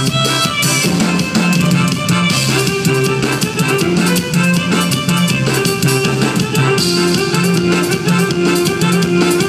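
Live Oaxacan band playing a chilena: electric bass, drum kit, percussion and keyboard. The bass line keeps alternating between two notes under the drums.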